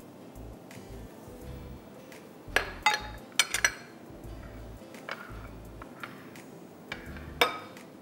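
Kitchen utensils clinking and knocking against pans and dishes: a quick run of sharp ringing strikes a few seconds in, and one more near the end.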